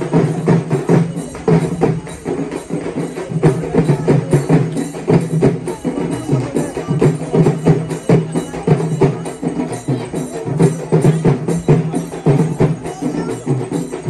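Percussion music with drums struck in a fast, steady rhythm of sharp strokes, kept up without a break.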